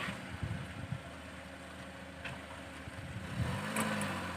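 Small hatchback's engine running at low revs as the car is eased along a rough mountain track, with a brief rise and fall in revs near the end and a faint click or two.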